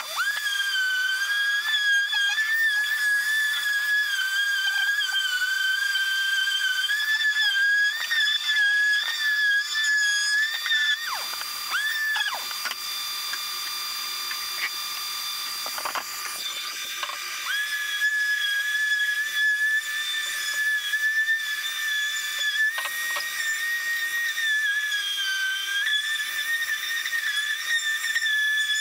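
Random orbital sander running on pallet-wood boards: a high whistling whine whose pitch wavers as it is pressed on the wood. It spins down and drops out for several seconds around the middle, then starts up again.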